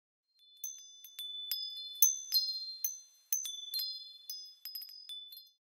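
Wind chimes tinkling: about a dozen bright, high metallic strikes at uneven intervals, each ringing on briefly and overlapping the next, used as an intro sting.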